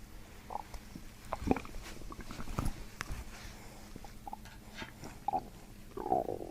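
Stomach gurgling during abdominal manipulation: a string of short gurgles and small squelching pops, gas and fluid moving in the gut, with the clearest ones about a second and a half in, near the middle and near the end.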